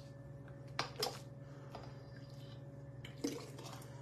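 Hot salsa being ladled from a stockpot through a metal canning funnel into a glass jar. There are a few short wet pours and knocks of the ladle, about a second in and again about three seconds in, over a steady low hum.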